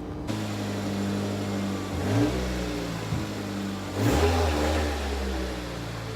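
2002 Honda Civic coupe's four-cylinder engine running, with short revs and drops in pitch about two seconds and four seconds in.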